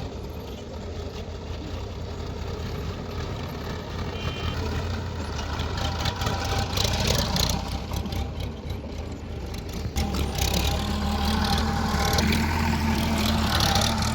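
Heavy diesel engine of a backhoe loader running steadily, picking up load about ten seconds in, with rough scraping and rushing noise over it at times.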